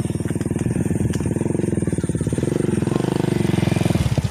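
A small engine running steadily close by, with a rapid, even putter.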